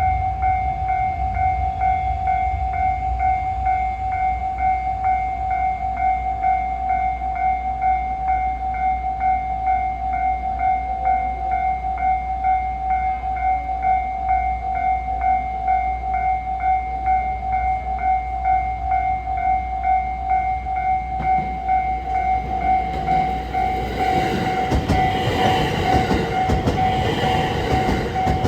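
Japanese level crossing's electronic warning bell ringing steadily at about two strokes a second. About 23 seconds in, a JR West 287-series electric train comes in and rumbles past over the bell.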